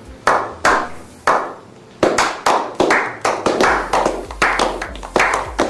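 Hand clapping: a few slow single claps, then from about two seconds in several people join and the claps come faster and closer together, a slow clap building up.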